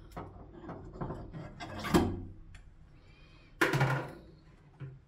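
A door being worked on: a series of clicks and knocks, with loud clunks about two seconds in and again at about three and a half seconds, and a lighter knock near the end.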